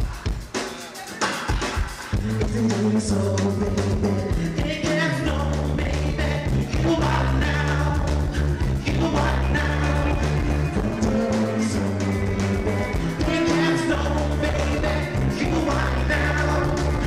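A live band playing a rock song with drums and a singing vocalist; about two seconds in, a heavy sustained bass comes in under the vocals.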